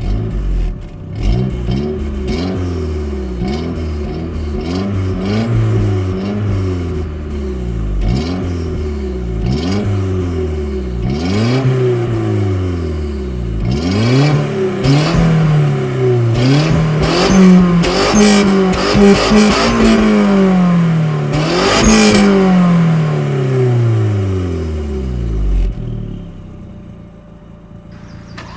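Audi 1.8T turbocharged inline-four engine revved in neutral, about a dozen quick throttle blips that each rise and fall back; around the middle the revs are pushed higher and held longer, then the engine drops back to a steady idle near the end.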